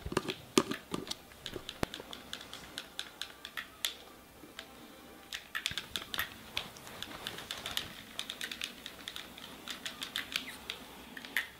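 A run of light, sharp clicks and taps at an uneven pace, some coming in quick clusters.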